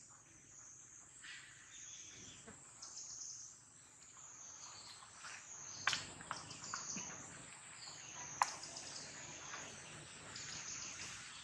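Outdoor ambience dominated by a steady, high insect drone that wavers slightly in pitch. Two sharp clicks come about six and eight seconds in.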